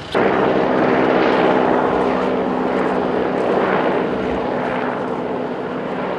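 Single-engine helicopter flying overhead: steady rotor and engine noise with a constant hum. It comes in suddenly and fades slightly in the second half.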